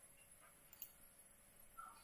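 Near silence: faint room tone, with one faint short click a little under a second in.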